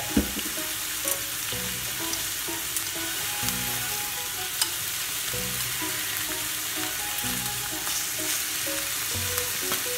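Thin slices of beef sizzling steadily in a frying pan, with occasional ticks and scrapes of chopsticks turning the meat.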